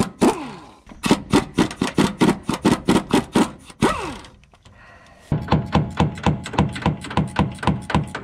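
Impact wrench hammering on a bolt of a truck's rear sway bar mounting, in two bursts of rapid blows. The first burst ends with the motor whining down, and the second starts about five seconds in.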